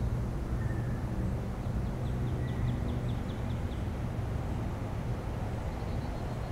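Outdoor ambience: a steady low rumble with a bird chirping faintly, including a quick run of high chirps about two seconds in.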